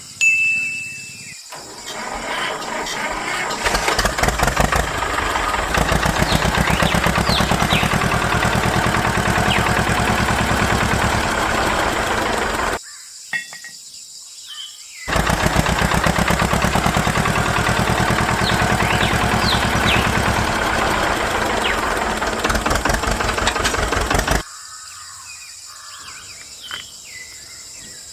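A small motor-driven machine running steadily with a rapid, even pulsing. It builds up over the first few seconds, cuts out for about two seconds near the middle, then runs again and stops suddenly.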